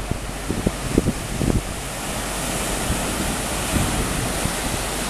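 Wind buffeting the camera microphone in low, irregular gusts for the first second and a half, giving way to a steady rushing hiss.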